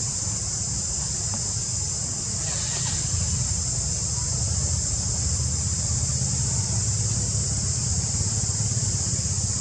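Steady, high-pitched insect chorus over a low, constant rumble, with a brief soft rustle about two and a half seconds in.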